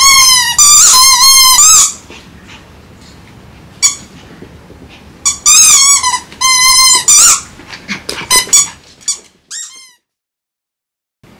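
Small dog whining in high-pitched, wavering cries: two long bouts of about two seconds each, then a run of shorter whines. The sound cuts off suddenly near the end.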